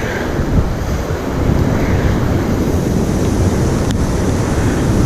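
Wind buffeting the microphone over the steady wash of surf breaking on rocks.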